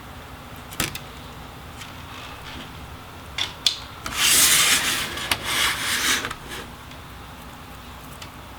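Small sharp clicks and then about two seconds of scraping and rubbing, as the fan cable connectors are worked loose from the laptop's motherboard with a tool.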